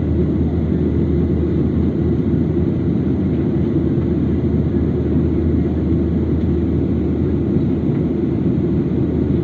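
Jet airliner cabin noise in flight: a steady low rumble of engines and airflow with a constant hum underneath, heard from a window seat.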